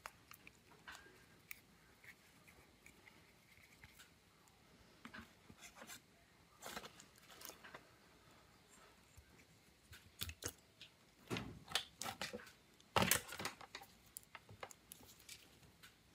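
Scattered light clicks, taps and short scrapes of tablet parts and small tools being handled. They grow busier and louder about ten seconds in, with the loudest knocks about thirteen seconds in.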